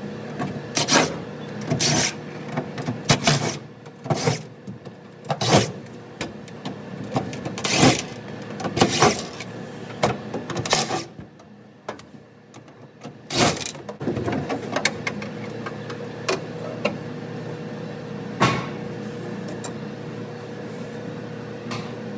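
Hand-tool work on a truck's fasteners: an irregular string of sharp clinks and knocks as screws are worked loose and tools and parts are set down, thickest in the first two-thirds. A steady faint hum comes in about two-thirds of the way through.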